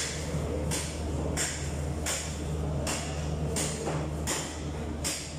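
A butcher's cleaver chopping meat on a block, evenly spaced blows about one every 0.7 s, over a steady low hum.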